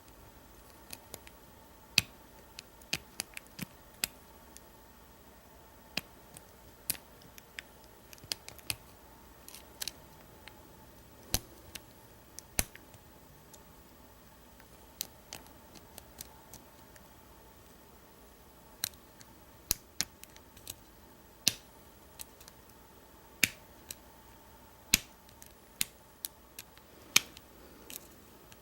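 Scattered sharp metallic clicks and ticks at irregular intervals, some in quick clusters: a hook pick and tension bar working the pins inside the restricted keyway of an American 1305 padlock as it is single-pin picked.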